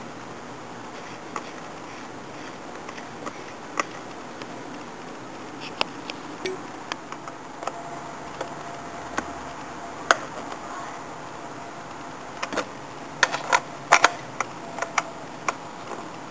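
Irregular metallic clicks and taps of a socket wrench working the nuts of the air-cleaner base plate over a Weber 32/36 carburettor, with a quick cluster of sharper clicks near the end. A steady hiss runs underneath.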